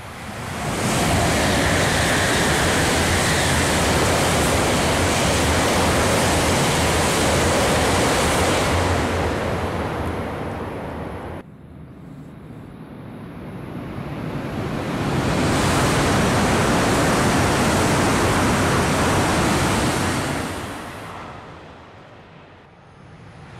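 E4 series Max double-decker Shinkansen passing at speed, a loud rush of wind and wheel noise that swells within the first second, holds for about eight seconds and cuts off abruptly. A second high-speed train pass swells and fades a few seconds later.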